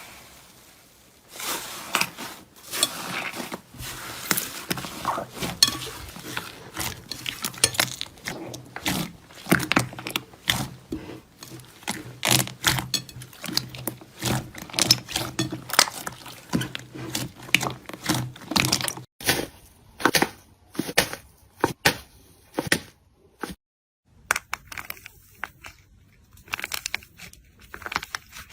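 Slime being pressed, poked and stretched by hand, giving dense, irregular crackling and popping sounds.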